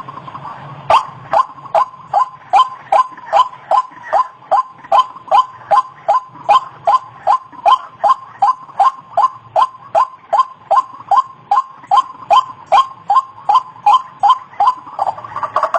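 White-breasted waterhen (ruak-ruak) calling a long, steady series of short, harsh, slightly falling notes, about three a second, after a brief pause at the start.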